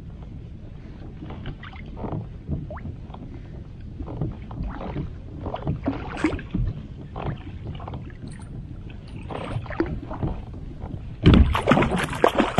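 Scattered knocks and water sloshing around a kayak as a hooked kokanee salmon is reeled in, then a loud, sudden splashing burst about eleven seconds in as the fish thrashes at the surface by the landing net.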